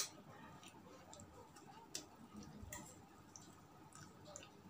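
Near silence broken by a few faint clicks and mouth smacks of someone eating, the sharpest right at the start.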